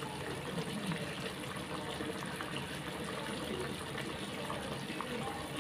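Pot of chicken and pork adobo simmering, the sauce bubbling steadily with small scattered pops.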